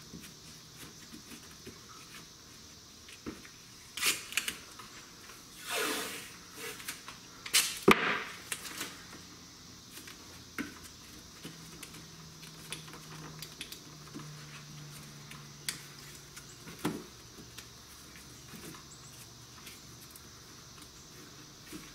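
Painter's tape being pulled off the roll and wrapped around a bundle of cardboard Roman candle tubes: a few loud ripping, rasping pulls of tape a few seconds in, amid light clicks and handling taps.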